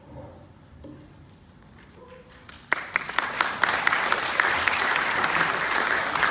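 Audience applause breaking out suddenly about two and a half seconds in after a near-quiet stretch, many hands clapping steadily.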